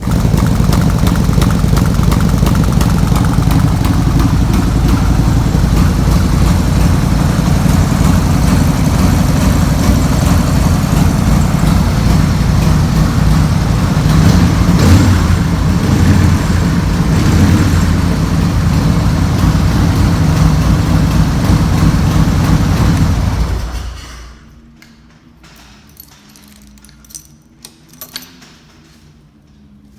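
Harley-Davidson Sportster XL1200S's air-cooled V-twin engine running steadily, loud and low. It cuts off suddenly about three-quarters of the way through, leaving a few faint clicks.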